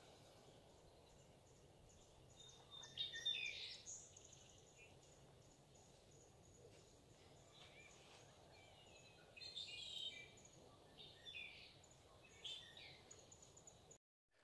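Birds calling in short chirping phrases over a faint, steady outdoor hiss; the loudest phrase comes about three seconds in, with several more from about nine seconds on.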